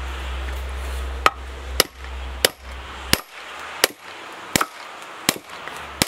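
Sledgehammer striking a steel splitting wedge driven into a creosoted wooden railroad tie: eight sharp metal-on-metal blows, about one every 0.7 seconds, starting about a second in, to split the log.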